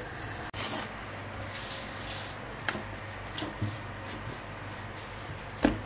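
Hands rolling and rubbing soft bread dough into a log on a floured granite countertop: faint repeated rubbing strokes, with a thump near the end.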